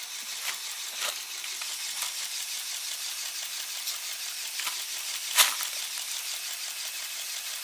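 Lego Technic crane grab and popcorn being handled: a few light plastic clicks and one sharp click about five seconds in, over a steady hiss.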